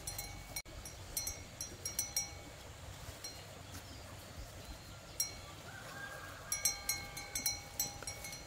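A small metal bell clinking irregularly, in quick clusters of clinks about a second in and again thicker toward the end.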